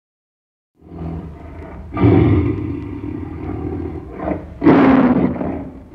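Tiger roaring, starting about a second in, with the two loudest roars about two seconds in and again near the end.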